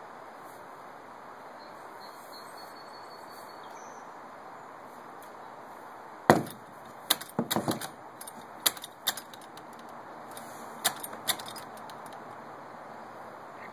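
A horse in its stall knocking against its wooden half-door, with metal clinks mixed in: a scattered run of sharp knocks starting about six seconds in, the first the loudest, over a steady background hiss. The horse is restless at being shut in.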